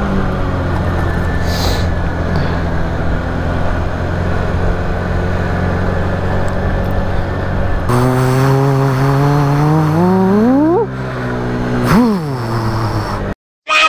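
Motor scooter ride: a steady engine hum with road and wind noise, then from about eight seconds in an engine note that climbs steeply in pitch for about three seconds, and a short rise and fall of pitch near the end. The sound drops out briefly just before the end.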